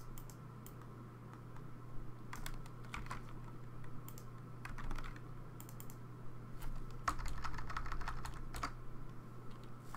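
Typing on a computer keyboard: scattered keystrokes, then a quicker run of keys about seven seconds in, over a steady low electrical hum.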